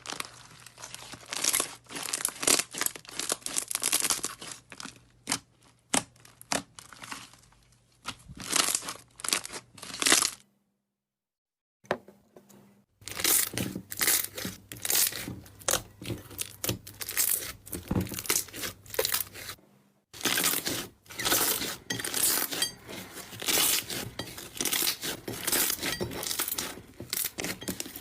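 Slime being squeezed, stretched and pressed by hand, giving dense irregular crackling, popping and crunching. The sound cuts out for a couple of seconds about a third of the way through, then resumes.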